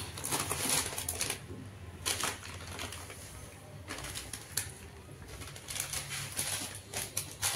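Faint, irregular rustling with a few light taps, louder about two seconds in and near the end, over a faint steady low hum.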